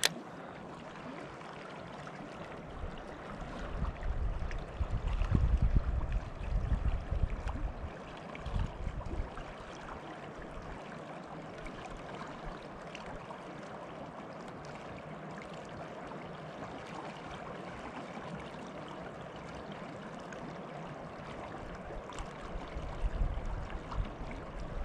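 Rio Grande river water rushing steadily. Low rumbles come over it a few seconds in and again near the end.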